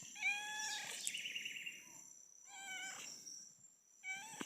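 Domestic cat meowing three times, each meow rising at the start and then held level, the first the longest. A steady high insect drone runs underneath.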